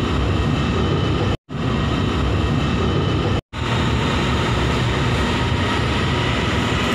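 A loud, steady low rumbling noise, cut off twice by a moment of silence.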